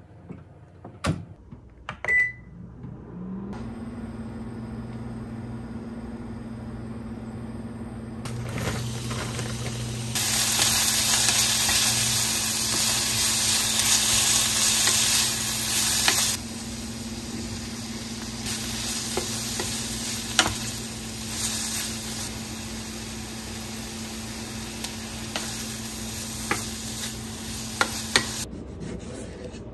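A countertop oven gives a short beep and starts up with a steady hum. Then sliced onions and mushrooms sizzle in a frying pan, loudest for several seconds, as a wooden spatula stirs them with occasional knocks against the pan.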